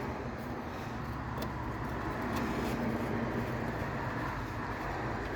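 Steady background rumble of passing road traffic, swelling slightly in the middle, with a few faint clicks.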